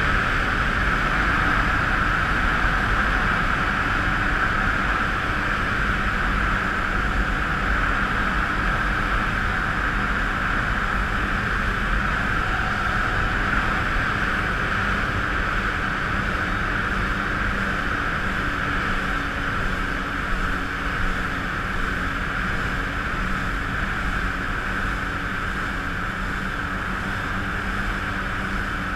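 Kawasaki jet ski engine running at a steady cruising speed, a constant drone with a steady hiss over it, easing slightly in level over the stretch.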